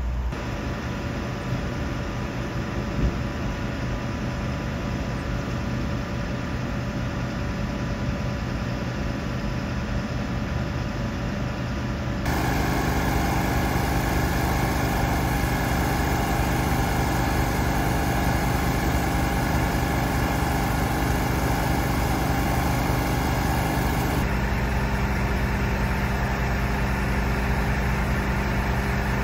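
Engines of parked emergency vehicles idling: a steady low hum. About twelve seconds in it becomes louder, with added steady whining tones, and about twelve seconds after that it changes back to a lower hum.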